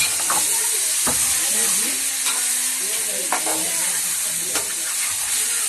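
Marinated chicken 65 pieces frying in hot oil with a steady sizzle while being stirred, the spatula knocking against the pan a few times.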